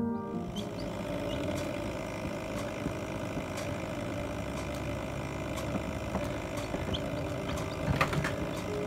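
Steady hum of a small computer fan running inside a still-air chick incubator, with a few faint short high chirps from the chicks and a brief louder sound near the end.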